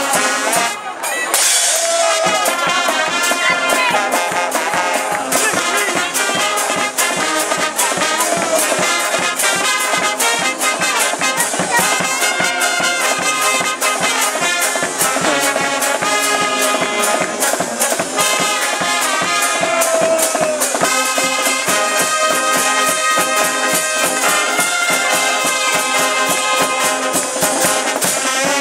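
A Dutch blaaskapel (dweilorkest) playing live: trumpets, trombones and sousaphones carry the tune over a steady beat from a marching bass drum with a cymbal on top. The music drops out briefly about a second in and then goes on.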